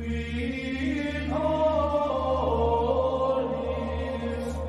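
Choir chanting in a slow, sustained monastic style over a steady low drone. A higher line of voices enters a little over a second in and steps down in pitch partway through.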